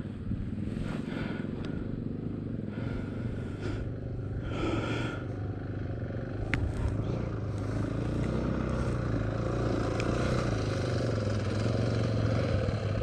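Dirt bike engines running: a steady idle throughout, with another dirt bike coming closer and growing louder toward the end.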